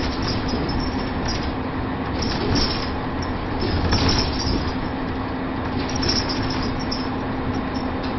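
Inside a moving DAF single-decker bus with a Plaxton Paladin body: the engine drones steadily under a wash of road noise, while the body and interior fittings rattle in several louder bursts over the road surface.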